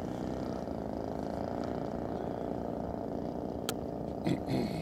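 Engines of a radio-controlled C-119 model aircraft running steadily as a low, even hum, with a sharp click a little before the end.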